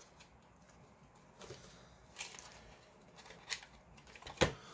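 A few light, scattered clicks and scrapes of a stack of Pokémon trading cards being handled and slid into a cardboard deck box.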